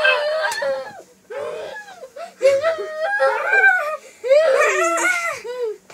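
Young children laughing and squealing with high-pitched cries, coming in several runs with short breaths between, as they play-fight.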